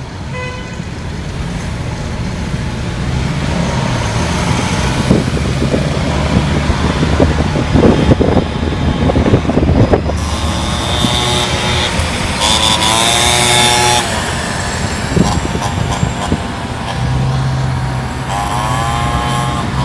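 City traffic heard from inside a moving taxi: a steady low engine and road hum, with other vehicles passing close by. From about halfway through, a whine with several tones rises and falls a few times, with a short hiss in the middle of it, and the whine rises again near the end.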